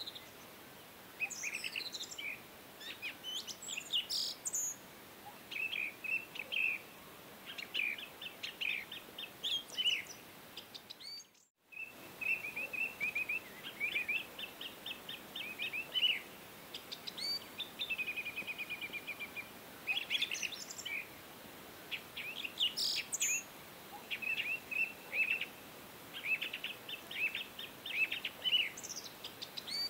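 Birds chirping and calling in many short notes and quick trills, with a brief gap in the sound about eleven seconds in.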